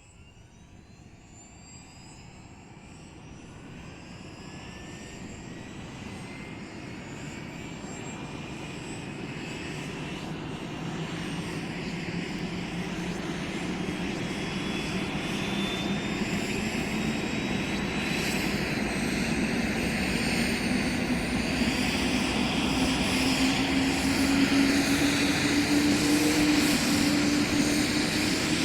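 Helicopter engine starting up: a whine and a deeper tone both climbing steadily in pitch, growing steadily louder as it spools up.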